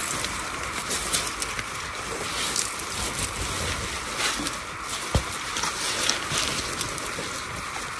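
Flowing river water, a steady rushing hiss, with a single low knock about five seconds in.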